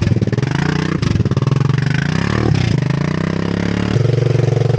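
Honda 300 ATV's single-cylinder engine revving hard while the quad is bogged in deep mud, its pitch climbing three times and then holding high and steady near the end.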